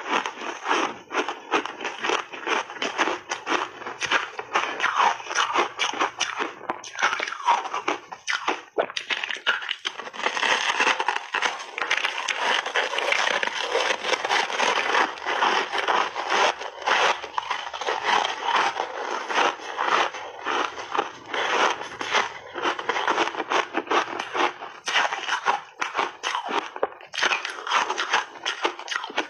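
Frozen ice cake coated in milk powder crunched and chewed between the teeth close to the microphone: a dense, rapid crackling of breaking ice that goes on without pause.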